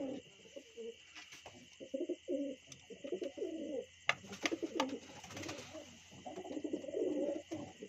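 A flock of domestic pigeons cooing in a loft, many low overlapping coos coming in bunches, with a few sharp taps about four seconds in.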